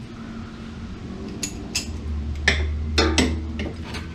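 Hand ratchet, extension and socket clinking and tapping against metal, about six sharp metallic clicks at uneven intervals, as the socket is fitted up onto a starter-motor mounting nut.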